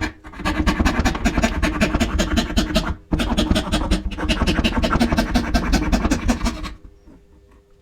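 Rapid rhythmic scraping strokes of a hand tool working wood, with brief breaks just after the start and about three seconds in. The strokes stop shortly before the end, leaving a faint steady hum.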